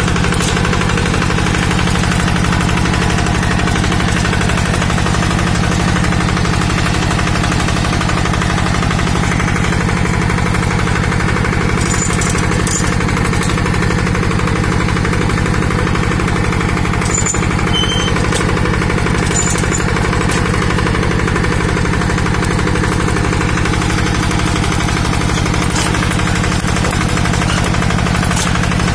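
Two-wheel hand tractor's single-cylinder diesel engine running steadily under load as it pulls a plough through dry ground, a fast even chugging.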